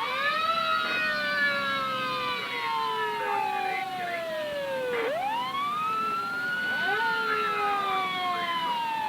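Several emergency-vehicle sirens wailing together, overlapping at different pitches. Each rises quickly and then falls slowly over about four seconds, starting a new rise about five seconds in.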